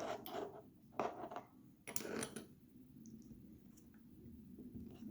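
A few short clicks and scrapes from a puzzle lock and its key being handled, spaced about a second apart in the first couple of seconds, then quiet.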